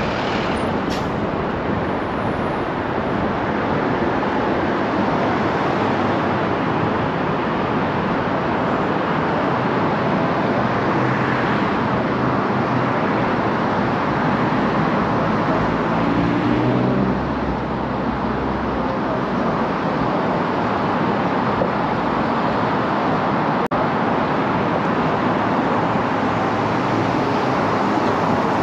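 Car driving through city traffic: steady road and tyre noise with surrounding traffic. A low engine drone swells briefly a little past the middle.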